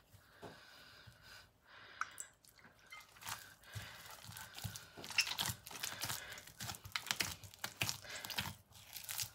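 Hand kneading flour and water into a stiff dough in a glass bowl: irregular soft crunching and squishing as the crumbly dough is squeezed and pressed, getting louder and busier after about five seconds.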